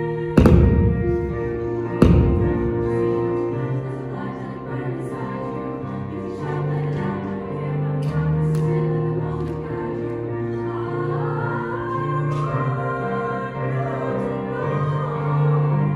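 A female choir singing a slow piece in held chords. Two loud thumps come near the start, about a second and a half apart.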